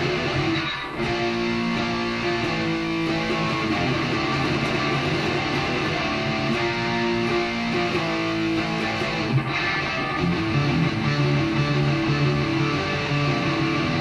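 Schecter Demon electric guitar being played, a continuous run of strummed and picked chords and notes.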